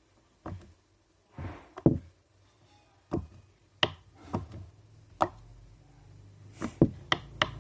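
A giant silicone pop-it fidget toy being pressed: about a dozen soft, irregular pops and taps as its bubbles are pushed through and spring back.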